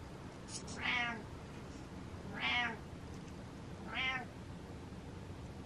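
A domestic cat meowing: three short meows about a second and a half apart.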